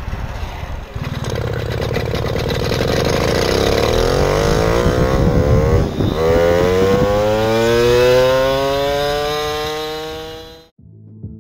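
Small two-stroke moped engine running under way. It holds a steady note at first, then climbs steadily in pitch from about four seconds in as the moped picks up speed. The sound cuts off suddenly near the end.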